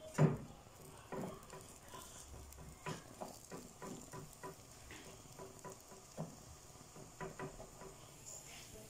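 A ball of semolina harcha dough set down on a griddle with a thump about a quarter second in, then pressed flat by hand inside a metal ring: a run of light, irregular pats and taps.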